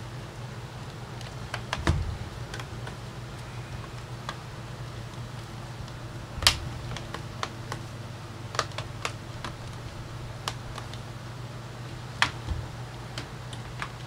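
Scattered clicks and knocks of a Samsung RF511 laptop's plastic case being handled, turned over and set down on a rubber bench mat. The loudest knocks come about two seconds in, around six and a half seconds, and just after twelve seconds, over a steady low hum.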